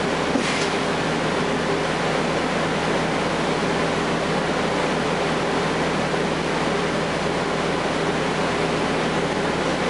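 Steady cabin noise inside a Gillig Low Floor transit bus: the Cummins ISL9 inline-six diesel running evenly with a constant drone and no rise or fall in pitch. A short hiss comes about half a second in.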